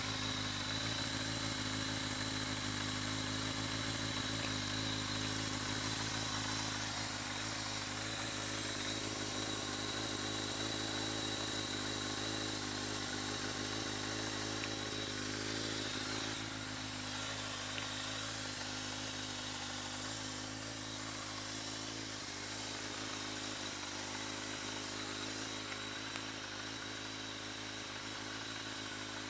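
Kawasaki ZZR1200's inline-four engine idling steadily through a Muzzy single-can aftermarket exhaust.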